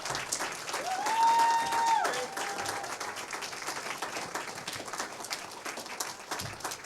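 Congregation applauding, many hands clapping steadily, with one drawn-out cheer rising and then held for about a second and a half, starting about a second in.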